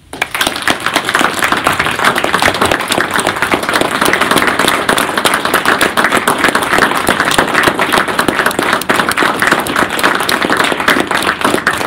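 Audience applauding: dense clapping that breaks out suddenly and keeps up steadily, with one person clapping close by.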